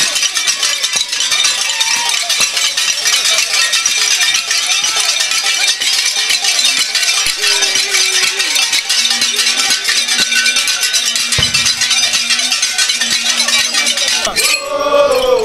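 Crowd of dancers with a dense, steady metallic clinking and jingling and scattered voices. Near the end, men's chanting voices come in loudly.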